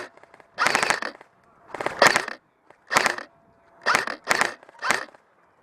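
Airsoft gun firing about six short bursts of rapid shots, each a quick rattle of clicks, with short gaps between them.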